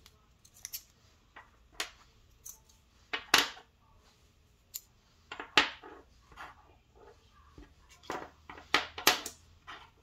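Small titanium multitool pieces being pulled apart from a magnetic stack and set down on a wooden tabletop: a string of irregular, sharp metal clicks and taps.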